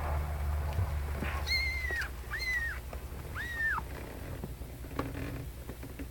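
A 19-day-old kitten mewing three times, short high-pitched cries that rise and fall, heard over a low steady rumble.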